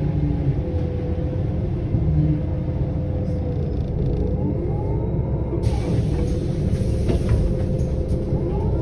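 Solaris Urbino 18 articulated bus running: a steady low rumble from its DAF PR228S3 diesel engine and ZF 6HP594C automatic gearbox, with a faint whine that rises and falls now and then.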